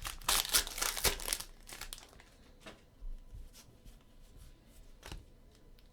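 A trading card pack's wrapper being torn open and crinkled for about two seconds, followed by a few faint rustles as the cards are handled.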